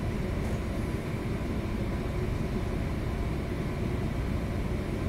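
Steady low rumble in the pilothouse of a thousand-foot Great Lakes freighter underway, with no sharp events.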